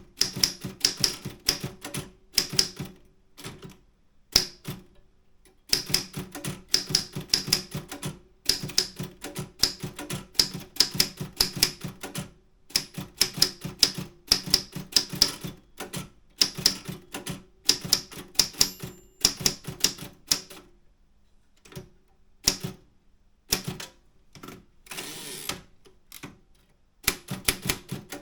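Optima M10 manual typewriter being typed on in fast runs of key strikes, each a sharp clack, broken by short pauses. Near the end the typing thins to a few single strikes, then a rasp of about a second, then the fast typing resumes.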